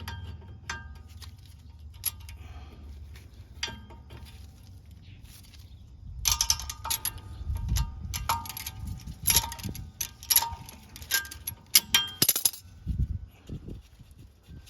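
Metal clinking and clanking of hand tools working on the brake hardware: scattered light clinks at first, then a dense run of loud, ringing metal knocks from about six seconds in until near the end.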